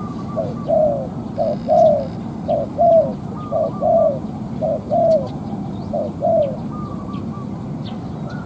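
Spotted dove (cu gáy) cooing: a run of six two-note coos, roughly one a second, each a short note followed by a longer falling one.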